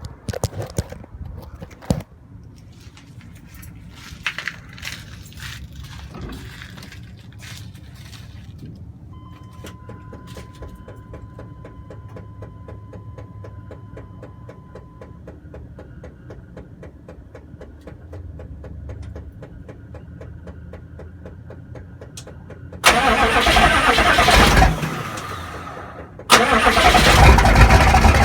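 Diesel engine cold start. First a few handling clicks, then a steady dashboard chime and faint fast ticking while the ignition is on. Near the end the engine cranks and fires loudly, dips briefly, then catches and runs loud. The uploader says the engine has an oil and exhaust leak.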